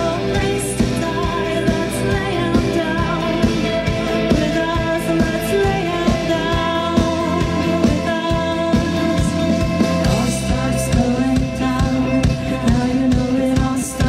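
Live rock band playing, amplified: electric guitar, bass, drums and keyboards with a singer's voice over them, steady and loud.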